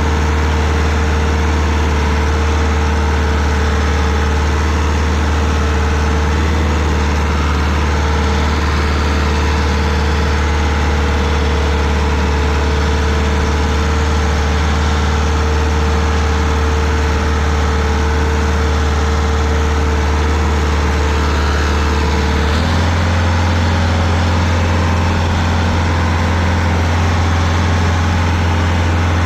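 Rayco RG50 stump grinder's engine running steadily under load while its cutter wheel grinds out a stump. The engine note changes once, about three-quarters of the way through.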